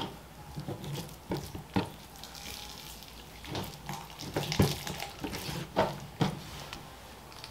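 Boning knife slicing and scraping through raw beef on a plastic cutting board as silver skin is trimmed off: wet cutting and peeling sounds with a scatter of irregular sharp knocks.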